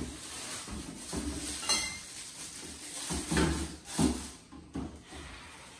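Groceries being put away into an open refrigerator: bottles and jars set down on the door shelves with several knocks and clinks.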